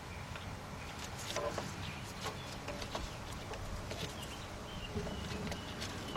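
Faint birds chirping briefly several times over a low steady background hum, with scattered small clicks and taps from hand work on the engine.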